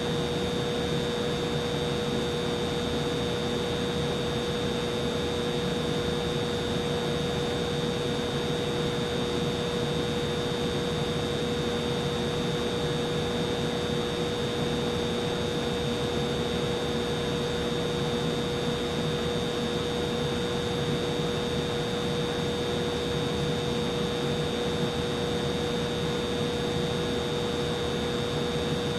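Humidifier running: a steady rush of air with a constant hum and a fainter high whine, unchanging throughout.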